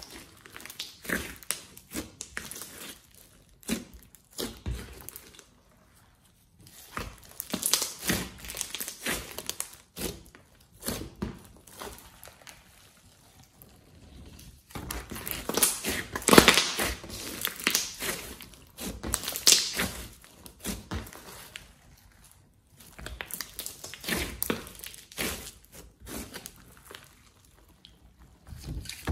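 Hands squishing, pressing and stretching glossy slime: sticky, crackling squishes that come in uneven bursts, with a few short pauses.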